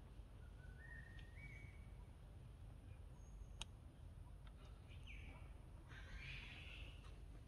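Quiet outdoor ambience: a low steady rumble with a few faint, short, high chirping calls, one rising in steps about a second in and one falling about five seconds in, and a single sharp click midway.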